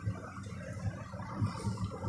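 Quiet room tone: a low steady hum with a few faint soft rustles and bumps.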